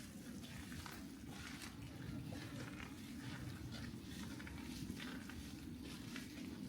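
Footsteps on a snow-covered path, a soft short step a few times a second, over a faint steady low rumble.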